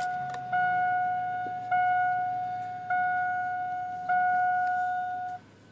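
2002 Chevy Avalanche dashboard warning chime, the seatbelt reminder, its lamp lit with the engine idling. A single steady tone starts sharply and fades, repeating about every 1.2 seconds, and stops shortly before the end.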